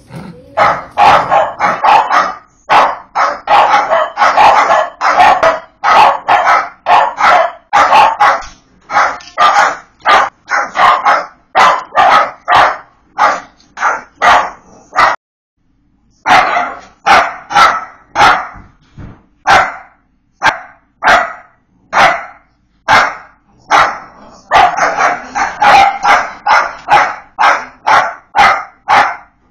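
Dachshund barking loudly and repeatedly, about two sharp barks a second, with a break of about a second halfway through.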